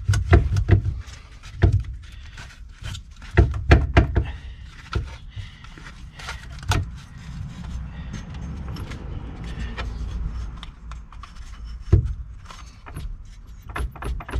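Irregular metallic clinks and knocks of tools and parts being handled around the motor mount and drive-belt pulleys, loudest in the first second and again about four seconds in, over a low steady rumble.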